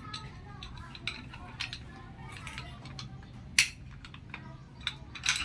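Scattered sharp clicks and clinks, with a louder clink about two thirds of the way through and another just before the end.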